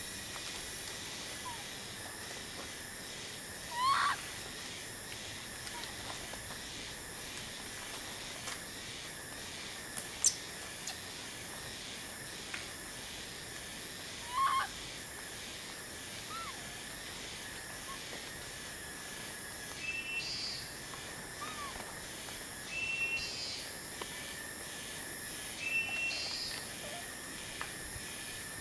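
Outdoor ambience with a steady high hum, broken by short high-pitched animal calls that sweep upward in pitch, one about four seconds in and another about ten seconds later, and a few brief high chirps near the end.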